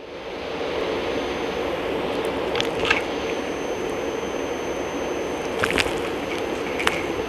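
Dyson Light Ball upright vacuum switching on, its motor building to a steady whir, then crunchy debris crackling and rattling as it is sucked up, in a few sharp bursts.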